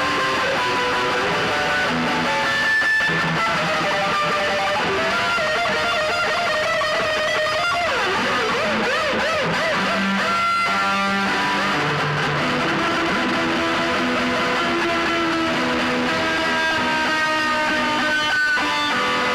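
Dense drone and noise music: many layered held tones over a constant hiss at an even loudness, with some tones wavering in pitch about eight to ten seconds in.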